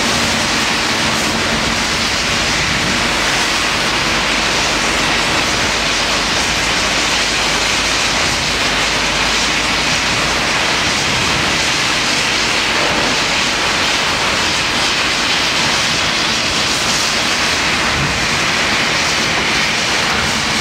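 Heavy tropical downpour heard from a moving vehicle: an unbroken hiss of rain mixed with tyres and traffic on the wet road, with a low rumble beneath.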